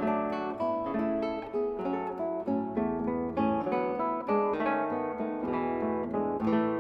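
Background music on a plucked string instrument: a continuous run of short notes, several a second, with no break.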